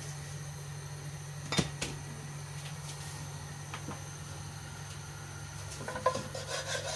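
Two sharp clinks of kitchenware about a second and a half in. Near the end a wooden spatula scrapes and taps in a non-stick wok, over a steady low hum.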